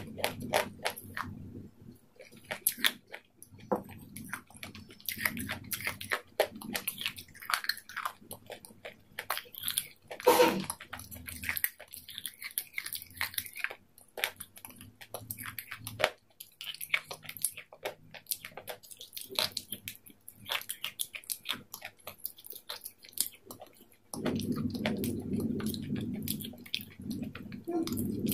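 Close-up chewing of a raw green salad of lettuce, cucumber and peppers: a steady run of crisp, wet crunches. A stronger mouth sound comes about ten seconds in, and a low steady rumble joins near the end.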